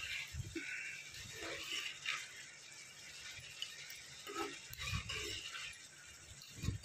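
Metal ladle scraping and clinking against a kadai, stirring sliced onions and dried fish as they fry in oil, in a few separate strokes with a couple of low knocks near the end.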